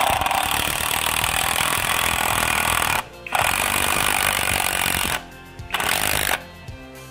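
Einhell TE-CI 18 Li brushless cordless impact driver hammering a long screw into pine in three runs. The first lasts about three seconds and the second about two; a short last burst seats the screw.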